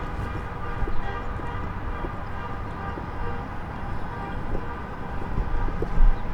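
Downtown city street ambience: low traffic rumble under a steady droning tone, with scattered small clicks and a swell of low rumble near the end.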